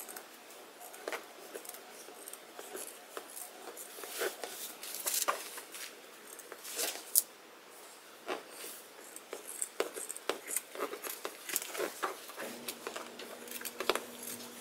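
Scissors cutting through suit-jacket fabric along a marked line: irregular short, sharp snips and clicks of the blades. A faint steady hum comes in near the end.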